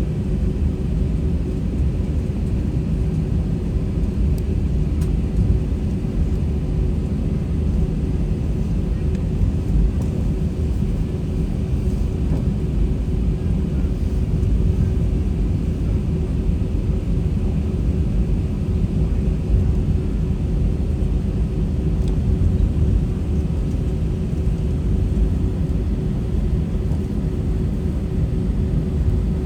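Airbus A320 cabin noise heard from a window seat: a steady low rumble of the jet engines and airflow with a constant hum, no change in pitch.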